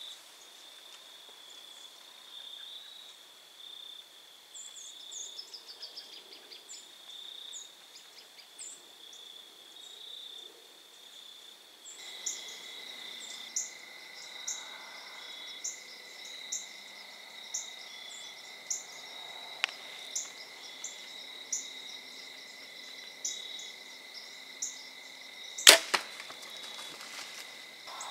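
Insects trilling steadily with a regular chirp about once a second; near the end a single sharp crack of a compound bow loosing an arrow, the shot the archer believes hit the doe.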